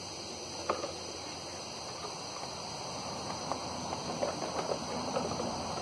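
Plastic screw caps being handled and screwed onto plastic water jugs: a sharp click about a second in, then small irregular clicks and ticks over the last half, over a steady outdoor hiss.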